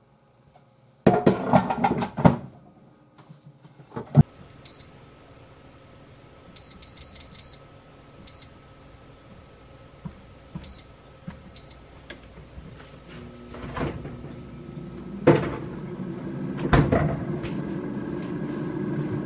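Air fryer basket clattering as it is pushed into the machine, then a series of short high beeps from the touch control panel as the time and temperature are set to 7 minutes at 200 °C. Near the end the air fryer starts running with a steady hum, with a couple of clicks.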